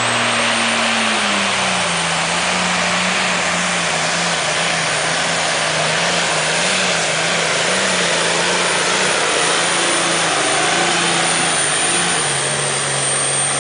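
Diesel engine of a modified pulling tractor running flat out under heavy load as it drags a weight sled down the pulling track. It is a dense, steady sound whose pitch sags a little between one and two seconds in and again near the end as the load builds.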